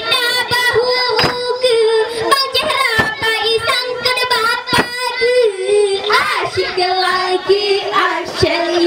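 A girl singing a solo melody into a microphone, her voice wavering with vibrato and settling lower in pitch after about six seconds, over frequent sharp percussive beats.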